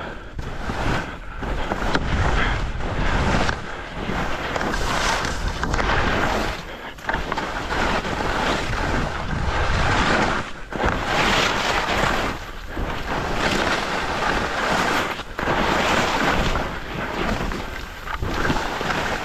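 Skis hissing and scraping over snow, with wind rushing over the microphone; the noise swells and dips every second or two.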